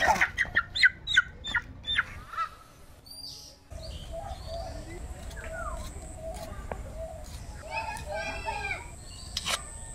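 Chicken squawking while being caught and held by hand: a quick run of short, loud calls that dies away after about two seconds. Then a quieter background with softer calls and a few sharp clicks near the end.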